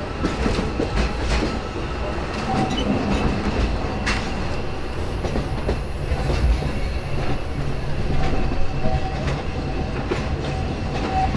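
A narrow-gauge steam train on the Walt Disney World Railroad, heard from a passenger car while running. A steady rumble runs under repeated wheel clicks over the rail joints, with a faint wheel squeal in the second half.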